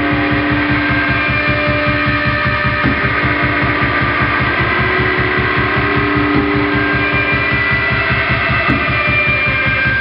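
Experimental drone music from electric guitar and keyboard: a fast, even throbbing pulse in the bass under several held high tones that shift in pitch.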